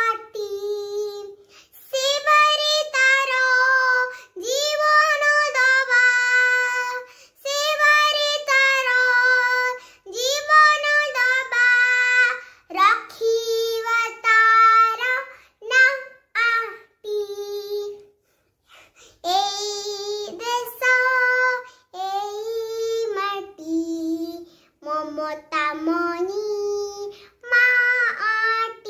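A young child singing solo in Odia, unaccompanied, in short phrases with held notes and brief breaks, and a pause of about a second a little past the middle.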